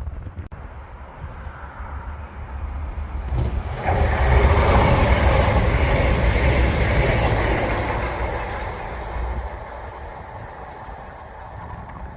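A train passing close by on the railway line: the sound builds, rises sharply about four seconds in, stays loud with a deep rumble and hissing rail noise for about four seconds, then fades away.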